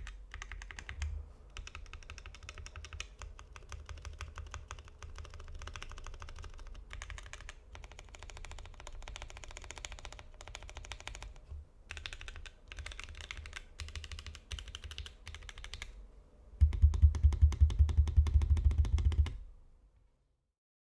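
Typing on a Satisfaction 75 custom mechanical keyboard with lubed and filmed Gateron CJ linear switches on an FR4 plate and GMK Umbra keycaps: fast runs of keystrokes with short pauses. About three-quarters of the way in, a louder, deeper run of rapid keystrokes lasts a few seconds, then the typing stops.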